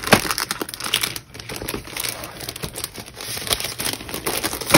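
Craft kit packaging crinkling and rustling in the hands, a continuous run of small crackles and taps.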